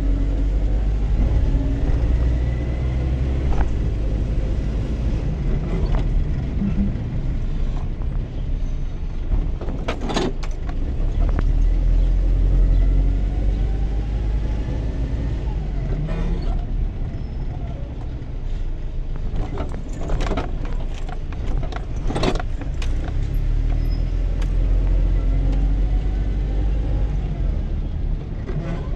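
Car cabin sound while driving slowly: a steady low engine and road rumble, with a few sharp knocks and rattles about a third of the way in and again past two-thirds.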